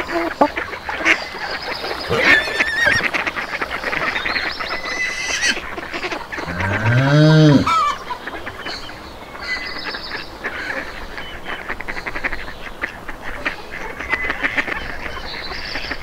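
Farmyard geese and ducks honking and quacking in a busy, overlapping chorus. About six and a half seconds in, a longer, deeper animal call rises and falls in pitch over about a second.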